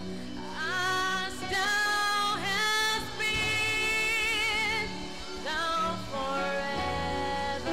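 A woman singing long, held notes with a wide vibrato into a microphone, with sustained chord accompaniment underneath. The voice comes in about half a second in, breaks off briefly around five seconds and comes back.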